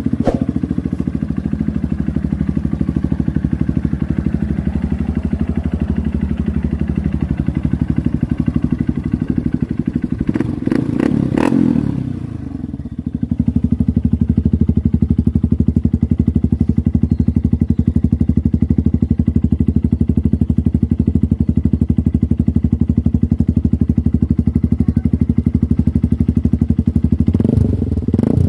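Honda CRF150L's single-cylinder four-stroke engine idling through a Nurifumi Rocket 4 aftermarket slip-on muffler. The revs rise briefly about ten seconds in, then dip, and swell up and down again near the end.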